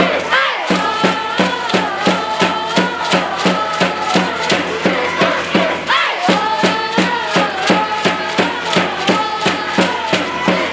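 A school cheering section in the gym chanting and singing a cheer in unison over a steady drum beat of about three to four hits a second.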